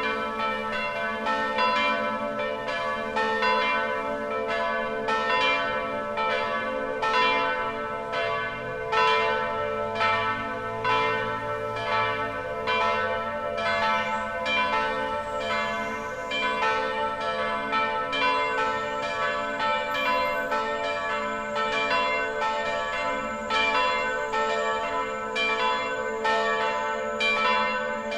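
Full peal of three church bells tuned A3, B3 and C-sharp4, cast by the Lera foundry after the war, all swinging together (rung a distesa). Their strokes overlap in a continuous ringing rhythm, a couple of strikes a second.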